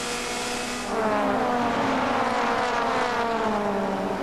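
WTCC touring car engines running hard on the circuit. About a second in, a louder engine comes in and its pitch slides slowly down over the next few seconds.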